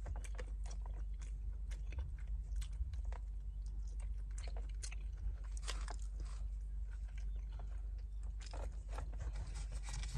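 A person chewing and biting food close to the microphone, making irregular small wet clicks and crunches. A low steady rumble sits under it.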